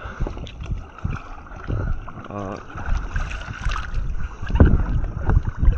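Kayak moving down a river: water noise with wind buffeting the microphone in uneven gusts. A voice sounds briefly about halfway through.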